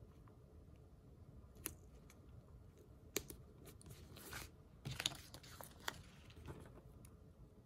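Sticker paper being handled and pressed onto a planner page: faint crinkling, with a few light clicks and taps.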